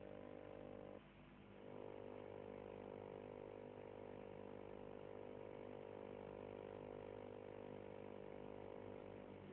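Faint steady hum of several held tones that drops away briefly about a second in, then holds steady again.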